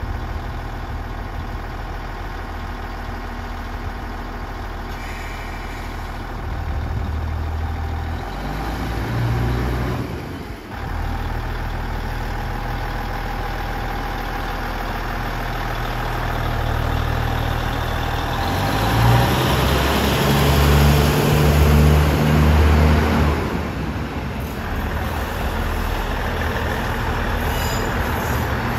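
JR Central Kiya 97 series diesel railcar's engine running and pulling its flat wagons away slowly. The engine note rises about seven seconds in and dips briefly around ten seconds. It then works hardest and loudest from about eighteen to twenty-three seconds before easing back.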